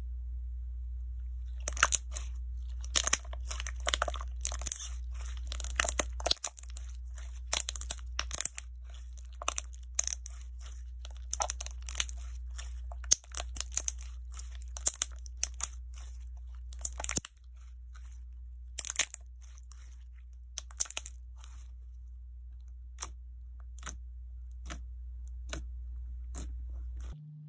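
Jelly slime squeezed and pressed by hand, giving many short crisp crackles and crunches, dense at first and sparser in the second half, over a steady low hum. The crunch is typical of the melamine-sponge 'peach flesh' pieces inside being crushed.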